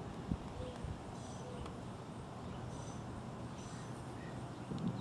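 Steady outdoor background noise with a few faint, short, high bird chirps, and soft thumps from hands pressing clay on the board near the start and again near the end.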